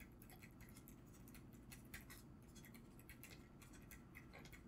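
Very faint, irregular ticks and light scratches of a stylus writing on a tablet screen, over a steady low hum.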